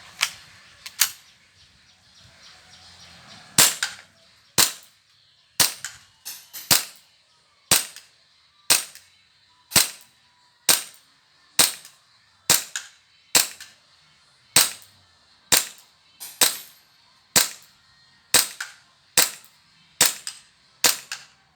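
Tanaka P220 IC gas blowback airsoft pistol firing a magazine of 0.20 g BBs: about twenty sharp single shots, roughly one a second, each with the hard kick of the slide cycling.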